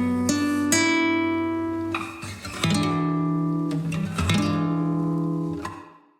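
Background music of plucked acoustic guitar notes and chords, which fade away to silence near the end.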